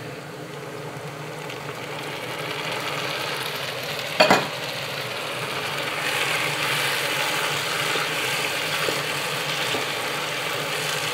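Vegetables sizzling as they fry in olive oil in a pan, with chopped bell pepper just added to carrot, celery and garlic; the sizzle grows louder over the first several seconds. A single sharp knock comes about four seconds in.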